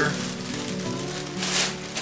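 Background music with steady held notes, and a short rustling noise about one and a half seconds in, from brown sugar being poured into a plastic brining bag.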